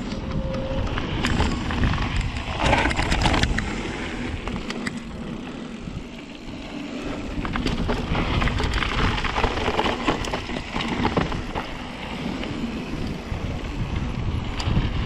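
Mountain bike riding down a dirt trail: rumbling wind on the action camera's microphone and tyres on dirt and gravel, with frequent clicks and knocks as the bike goes over rough ground.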